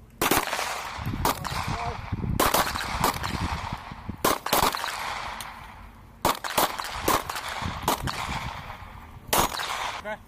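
Semi-automatic pistol shots, about ten fired singly at uneven spacing, some pairs under half a second apart, others over a second apart. Each crack trails off in an echo that lasts most of a second.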